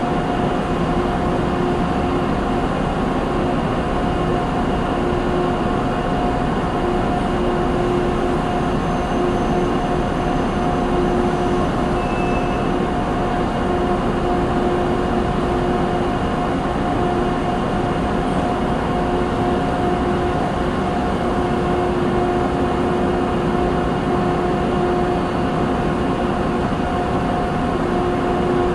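Factory machinery ambience: a steady, continuous industrial drone with a constant hum running through it.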